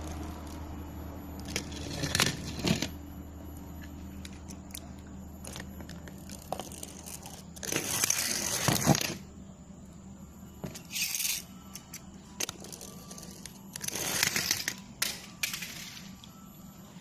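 RC toy construction machinery working loose material: irregular bursts of scraping and crunching, the longest about a second and a half, over a faint steady small-motor hum that fades in the first seconds.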